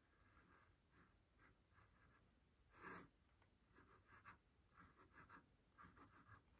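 Fountain pen nib scratching faintly on sketchbook paper as it draws in short, repeated strokes, with one brief louder sound about three seconds in.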